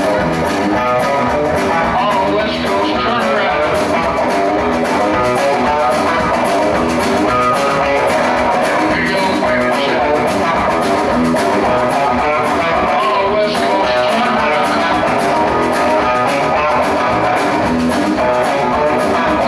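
Rock music with guitars and a steady drum beat, played at an even, loud level.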